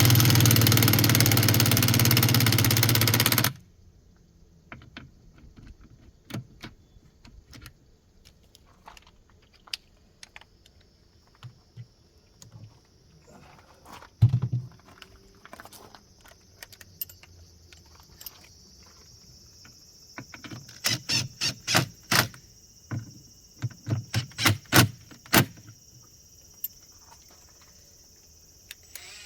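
Yamaha SJ700 stand-up jet ski's two-stroke twin engine running loudly for about three and a half seconds, then cutting off suddenly. Afterwards come scattered sharp metallic clicks and taps, bunched near the end, with a steady high insect trill from about a third of the way in.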